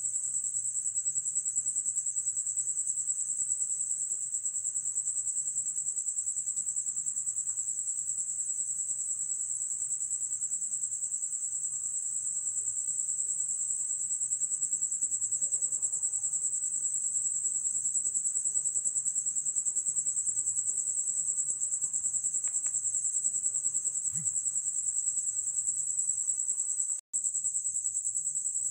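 Crickets singing at night: a steady, high-pitched, unbroken trill that cuts out for an instant near the end and then resumes.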